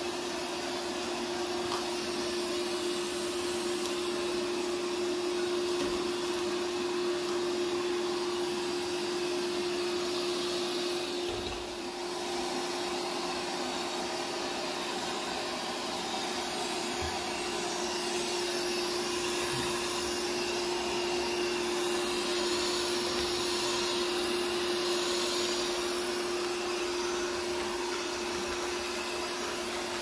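Realme TechLife robot vacuum running across a hardwood floor: a steady whir from its suction fan and brushes, with one constant hum through it.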